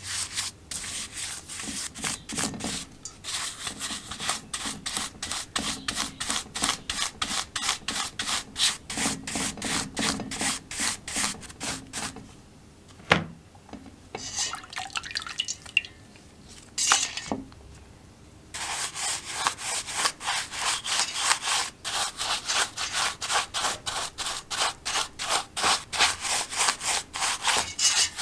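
Rapid back-and-forth rubbing strokes by hand, about four a second, as a part is worked over with an abrasive. The strokes stop for several seconds midway, with a couple of sharp knocks in the gap, then resume.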